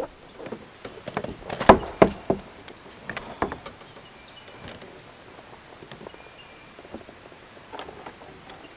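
A few sharp knocks and clatters of gear and a landed fish being handled on a plastic kayak, the loudest two close together, then a quiet stretch of faint background noise.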